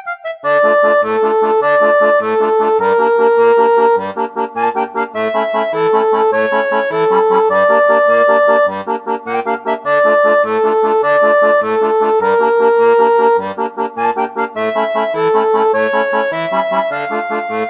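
Background music: a lively instrumental tune of held melody notes over short, regularly repeating bass notes.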